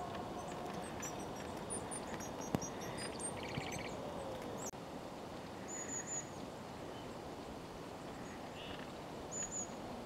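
Small songbirds calling from bare trees: a scattering of short, high, thin calls, with a brief rapid rattle of notes about three and a half seconds in. A single sharp click sounds about two and a half seconds in.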